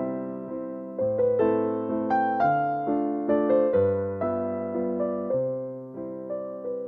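Background music: a gentle piano melody of struck notes that fade after each strike, over low held chords.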